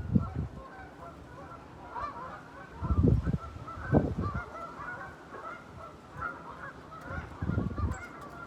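A flock of geese honking, many short overlapping calls going on steadily. Gusts of wind buffet the microphone at the start, around three and four seconds in, and again near the end.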